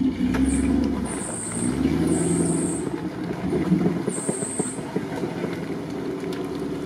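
Jeep Grand Cherokee's engine revving unevenly under load as the SUV creeps forward through deep mud and water. Four short high-pitched squeals come over it.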